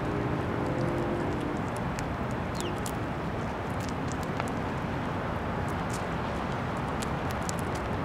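Steady outdoor background noise, a low even rumble with faint scattered ticks above it.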